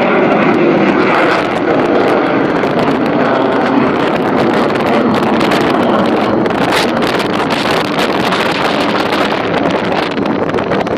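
Loud, steady engine drone of an aircraft flying, mixed with wind buffeting the microphone.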